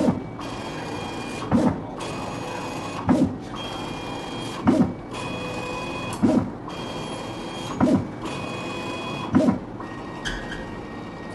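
RIGHT RT1800JC print-and-cut plotter running, its carriage sweeping back and forth with a steady high whine and a short thud at each reversal, about every second and a half.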